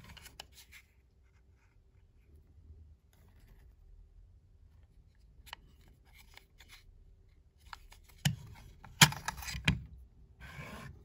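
A Nessmuk-style fixed-blade knife handled in its hard Kydex sheath: faint clicks and rustles, then three sharp plastic clicks about eight to ten seconds in as the blade snaps free of the sheath's retention and is drawn out, followed by a short scrape near the end.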